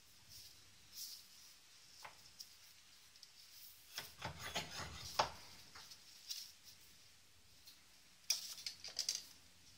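Light handling noises from a Hilti TE12S hammer drill being shifted in a bench vise and gripped at its chuck end by gloved hands: scattered rubs, clicks and small knocks, with a busier cluster about four to five seconds in and another near the end.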